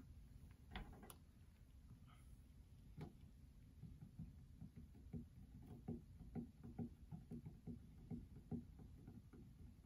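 Near silence: quiet room tone, with a run of faint soft ticks, about three a second, through the second half.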